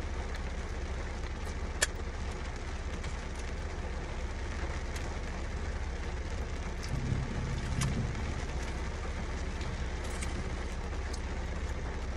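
Steady low rumble and hiss of a car interior, with a few light clicks and chewing sounds as buffalo fries are eaten, and a short low hum about seven seconds in.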